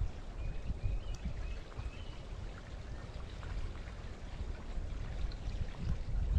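Colorado River water flowing and lapping in a steady wash, with uneven low thumps and a few faint high chirps in the first couple of seconds.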